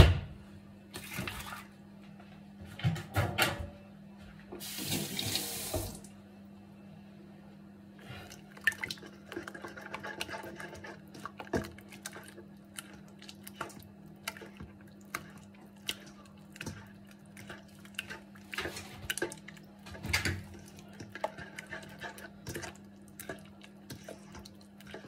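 A bare hand squeezing and stirring a runny mix of oil, yogurt and eggs in a stainless steel bowl, making irregular wet squelches and splashes.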